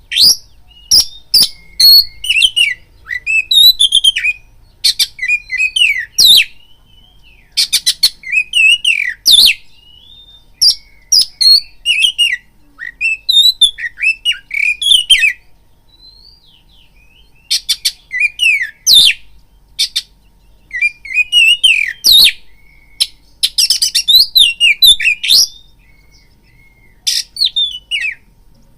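Oriental magpie-robin (kacer) singing loud, varied phrases of quick whistles, chips and harsh rasping notes, in bursts with short pauses and a longer pause of about two seconds past the middle.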